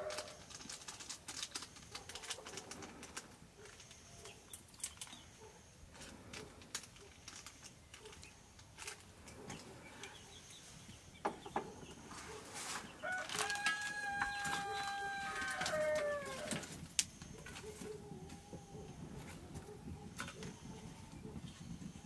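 A rooster crows once about two-thirds of the way through: one long call held steady, then falling away at the end. Scattered sharp crackles and clicks, fitting the open wood fire, run under it.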